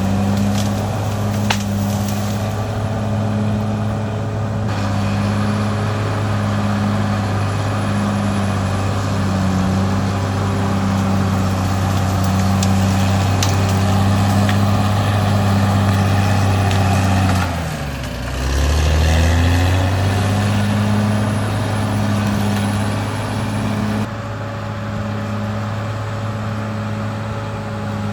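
Caterpillar D6R XL bulldozer's diesel engine running steadily. About two-thirds of the way through, its pitch sags briefly, then climbs back.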